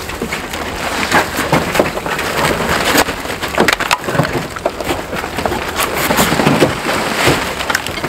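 Renovation debris (old insulation, plaster bits and pipe) sliding out of a plastic tarp onto a rubble pile: a continuous crackle and rattle of many small knocks, with the tarp rustling.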